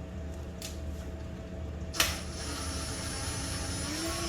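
Handheld power tool on the suspension bolts: a sharp click about halfway through, then a motor whine rising in pitch near the end, over a steady low hum.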